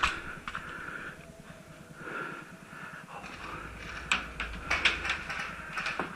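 Heavy breathing, with a handful of short sharp clicks or snaps, most of them in the last two seconds.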